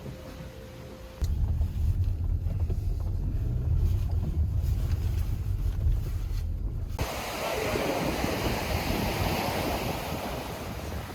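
Wind buffeting the microphone in a loud low rumble that starts suddenly about a second in; from about seven seconds in it gives way to sea surf washing ashore, with wind.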